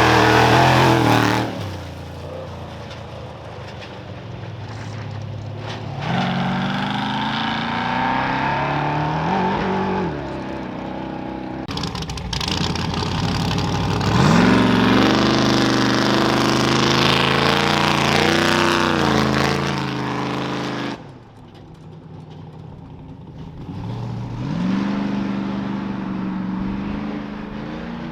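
Off-road race vehicles launching from a race start line one after another. Each engine revs up in a rising pitch as it accelerates away, about four times in all.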